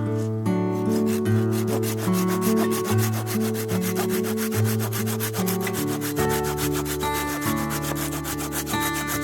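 Rapid, even rasping or scraping, about ten strokes a second, like wood being rubbed or sanded, over background music.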